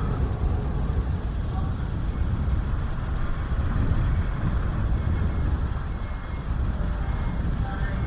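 Wind blowing across the microphone: a steady, gusting low rumble with a hiss above it.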